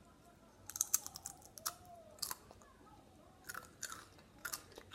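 Chips being crunched and chewed close to the microphone, in irregular clusters of crisp crackles.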